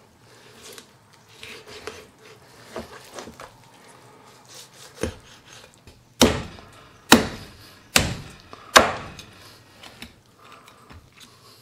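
Chinese cleaver chopping into a raw turkey on a cutting board: one lighter chop about five seconds in, then four heavy chops a little under a second apart. Before them come quieter knocks and rustles as the carcass is handled.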